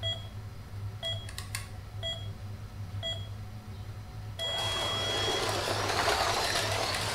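Slot car race start countdown: short beeps about once a second, four in all, then a longer start tone about four and a half seconds in. The 1/24-scale Carrera slot cars then run on the track, their motors and tyres making a loud, even noise, over a low steady electrical hum.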